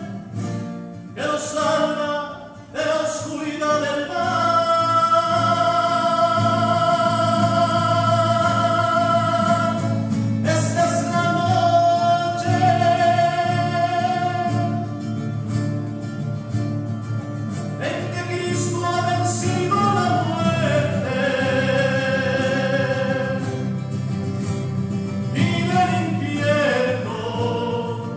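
Church singing: a sung melody of long, slowly held notes over a steady low accompaniment.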